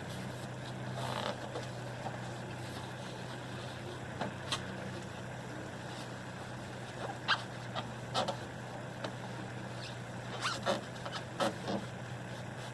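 Steady low hum of an idling vehicle engine, with a scattering of short clicks and scuffs over it.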